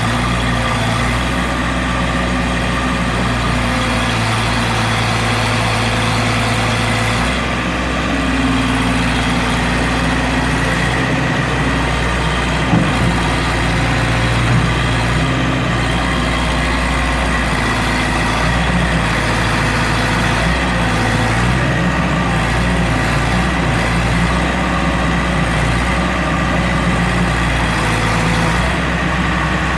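Heavy engine running steadily, with a shift in its low note about seven seconds in and a few light knocks near the middle.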